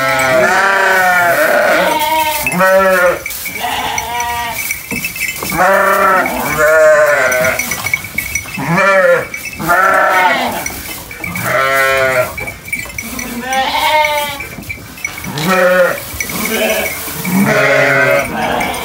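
Sheep bleating over and over, a dozen or more loud calls one after another, some overlapping, each rising and falling in pitch.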